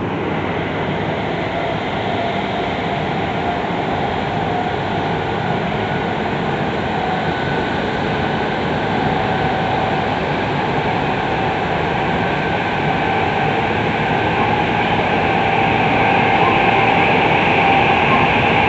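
Tokyu 3000 series train running, heard from inside the passenger car: steady wheel and motor noise with a faint whine of steady tones from its Hitachi IGBT inverter drive, growing slightly louder toward the end.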